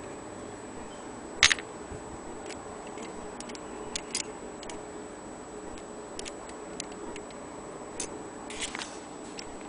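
Small irregular metal clicks and taps from a longcase clock movement's brass wheels and hand fittings as fingers fit the hands onto its centre arbor. The sharpest click comes about a second and a half in, with lighter ones scattered after it.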